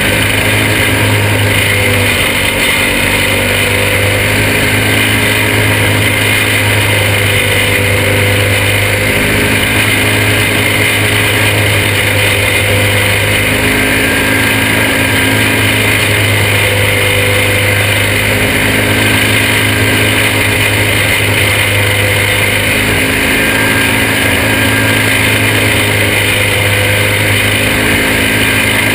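Onboard sound of a junior champ racing kart's small engine running hard at racing speed. Its pitch shifts a little up and down through the corners.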